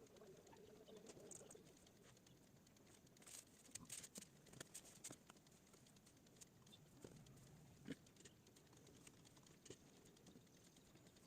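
Faint scattered clicks and taps from someone working a computer during a silent stretch. A small cluster comes about three to five seconds in, and a sharper single click near eight seconds.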